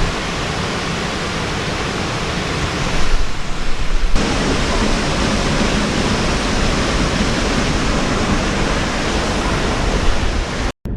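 Waterfall rushing steadily close by, a loud even wash of falling water that swells for a moment about three seconds in and cuts off abruptly near the end.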